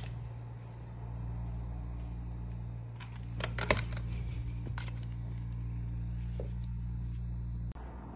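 Fujimo SOHO Deluxe massage chair's massage mechanism running with a steady low hum that cuts off abruptly near the end. A few clicks and knocks come in the middle, the loudest just before the four-second mark.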